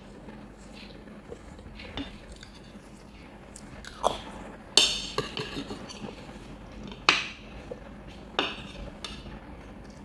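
Kitchen utensils clinking against cookware while cooking: a handful of sharp clinks with a short ring, the loudest about halfway through.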